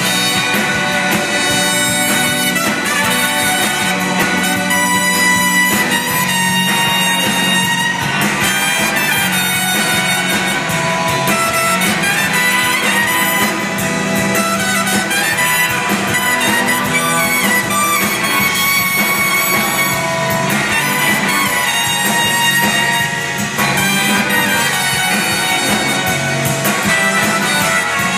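A live band playing amplified music, with trumpet and saxophone heard over the rhythm section of guitars, upright bass, drums and keyboard.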